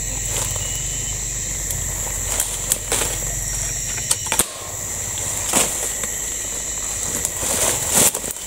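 Sharp cracks of a scoped air rifle being fired, the loudest near the end, over a steady high-pitched drone of forest insects.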